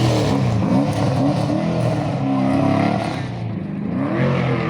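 A rally car's engine revving hard, its pitch climbing and dropping several times as it accelerates and shifts through the gears.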